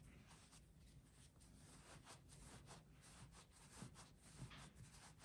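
Faint, irregular rustling and scratching of polyester fiberfill being pushed by fingers into a small gap in a crocheted velvet-yarn toy while it is stuffed firmer.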